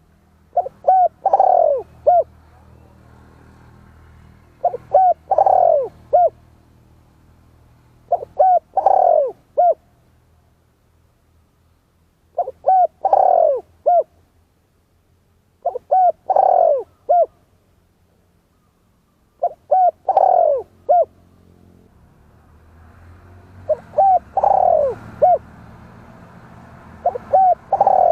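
Spotted dove cooing, the same three-part phrase repeated eight times about every three and a half to four seconds. Each phrase has short opening notes, a longer, louder coo sliding down in pitch, and a short closing note.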